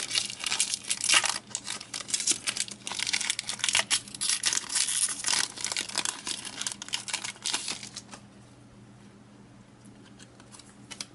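Pokémon booster pack's foil wrapper crinkling and tearing as it is handled and torn open, a dense irregular crackle that stops about eight seconds in.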